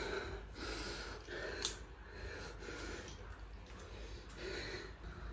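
A man breathing audibly in short, soft breaths, with a single short click about a second and a half in.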